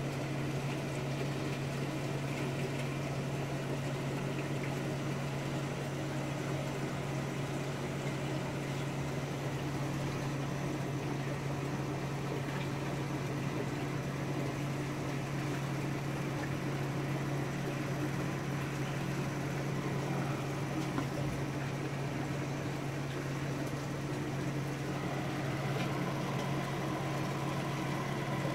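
Steady electric hum of an aquarium pump running, with water bubbling and trickling in the acrylic sump.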